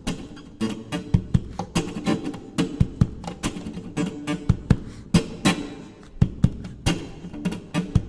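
Background music: a plucked guitar tune over a steady, regular beat.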